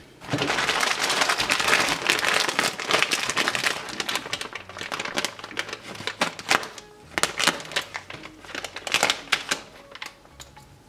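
Thin clear plastic ration bag crinkling as it is cut open and the packed contents are handled. Dense crinkling for the first few seconds, then scattered, sharper crackles and rustles.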